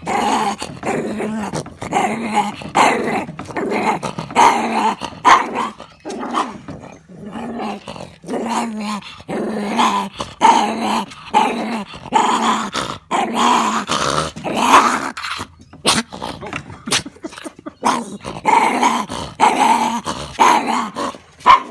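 Maltese puppy growling in irritation: a long run of growls with short breaks between them.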